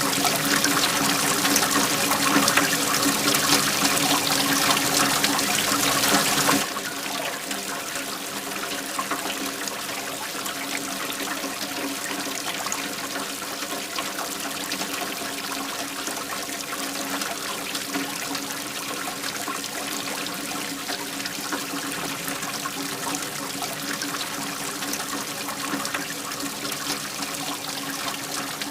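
Steady rush of flowing water from a waterfall. About six and a half seconds in it cuts abruptly to a quieter, softer stretch of the same flow.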